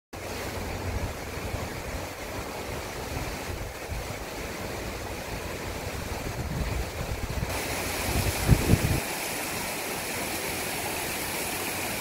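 Sea washing over a rocky shore, with wind buffeting the microphone in a low, gusty rumble that is strongest about eight and a half seconds in and drops away about a second later.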